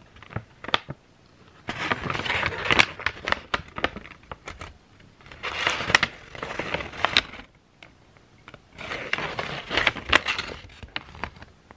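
Paper scroll crinkling and rustling as it is handled and shifted, in three bouts with quieter pauses between.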